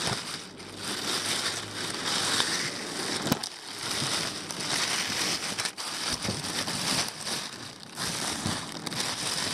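Packaging being handled as a shipping box of live fish is unpacked: irregular crinkling and rustling of packing material and plastic, with a few sharp clicks.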